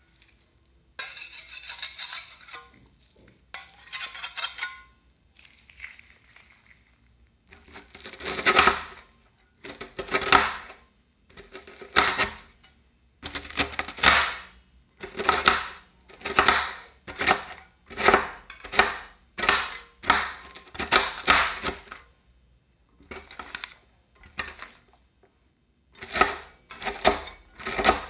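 Two metal spatulas chopping Cheetos into ice cream mixture on an ice cream roll machine's steel cold plate, clattering and scraping against the plate in repeated bursts of quick strokes about a second long, with a couple of pauses.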